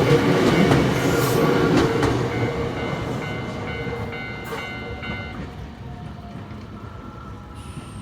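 Nankai Koya Line train passing the level crossing and moving away: wheels rumbling on the rails with clicks over the rail joints, fading steadily.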